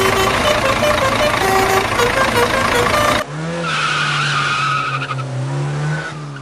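Loud edited soundtrack: about three seconds of busy music with a stepping melody, then an abrupt cut to a car engine sound effect, a steady hum with a higher whine, that fades near the end.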